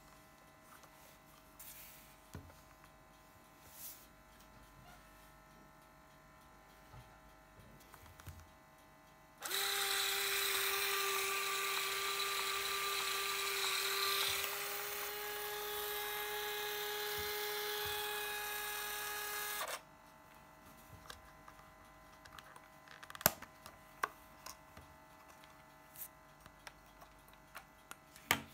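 Olympus Superzoom 120 compact film camera's built-in electric motor whirring steadily for about ten seconds, its tone shifting about halfway, then cutting off abruptly. Afterwards come a few sharp clicks from handling the camera body and its back door.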